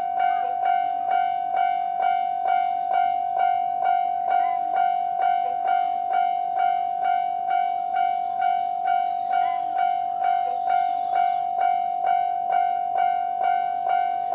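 Japanese railway level-crossing warning bell ringing at its standard setting, an even repeating ding about twice a second on one steady pitch.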